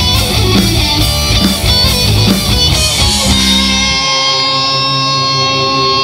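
Live rock band with electric guitars, bass and drums finishing a song: the beat stops about three seconds in and a last chord is left ringing, the bass dropping out a second later.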